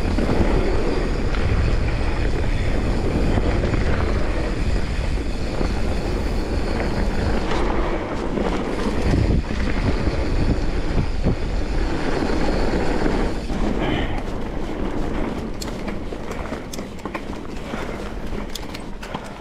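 Mountain bike riding down a dirt downhill trail: a steady rumble of tyres rolling and the bike rattling over rough ground, with wind on the microphone. About fourteen seconds in it eases off a little, with scattered sharp clicks and knocks.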